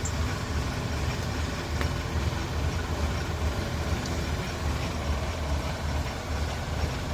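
Kubota DC75 combine harvester's diesel engine running steadily, a continuous low rumble with a machine hum over it.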